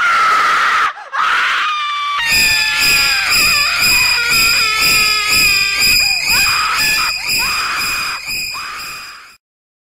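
Loud screaming: two short falling shrieks in the first two seconds, then a long high-pitched scream over a pulsing beat about twice a second, which cuts off suddenly near the end.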